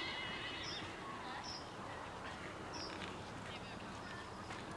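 A small bird chirping again and again, short high calls every second or so, over a steady outdoor hiss.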